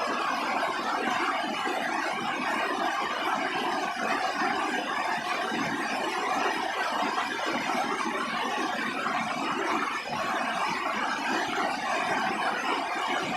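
Steady rain falling on a roof, an even hiss without distinct drops or breaks.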